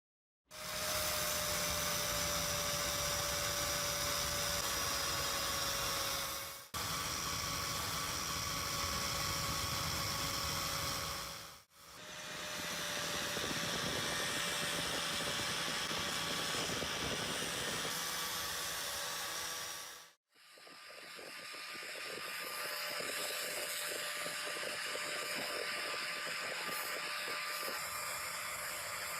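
A handheld electric power tool's motor runs steadily with a whine, working the rusty hammer's metal. It plays in four stretches joined by abrupt cuts.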